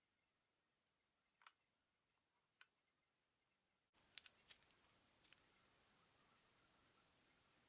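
Near silence with a couple of faint clicks, then about four seconds in a quick cluster of small sharp taps as a brass-backed dovetail saw is handled and seated in its slotted olive wood case.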